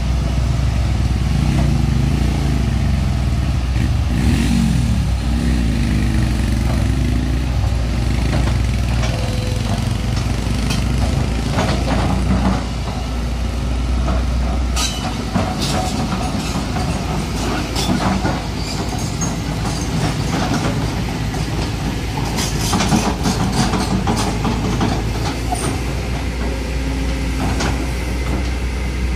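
Kobelco SK200 hydraulic excavator's diesel engine running steadily as the machine tracks and swings, with repeated metallic clanks and scrapes from its steel tracks and bucket on gravel through the second half.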